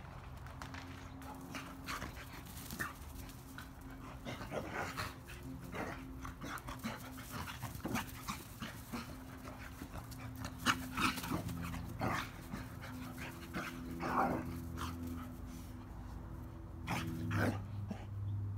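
Two dogs at rough play, panting and giving short whimpers and barks, amid scattered scuffling sounds; the loudest bursts come past the middle and near the end.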